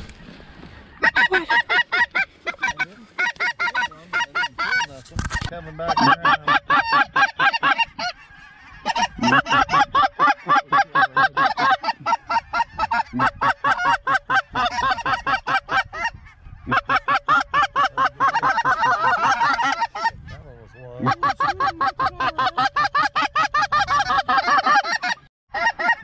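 Geese calling: fast, steady runs of high honks and yelps in bursts of a few seconds with short breaks between.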